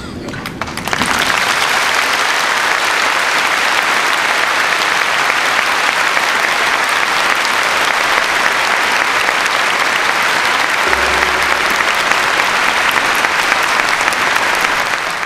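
A large audience applauding, the clapping rising sharply about a second in and then holding steady.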